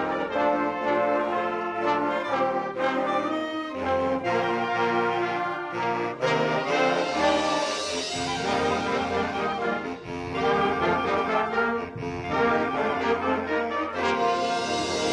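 School concert band playing, with the brass section to the fore in full, sustained chords.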